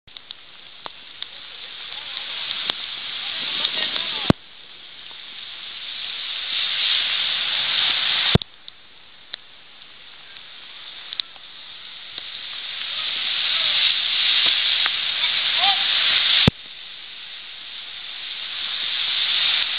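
Steady hiss of rain and running floodwater. It swells gradually, then drops abruptly with a click three times where the recording cuts.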